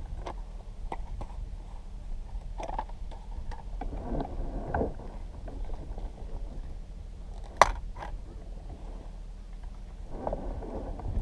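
Steady low rumble with scattered knocks, rustles and short clicks of handling and tool work, and one sharp click about seven and a half seconds in.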